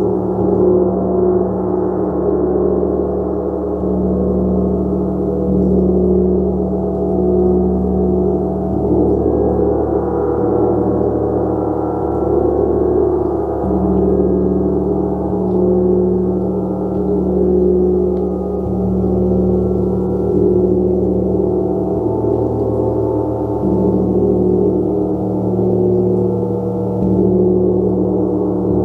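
A gong played continuously: a dense, sustained wash of overlapping tones that swells and shifts gently, with no sharp strikes standing out.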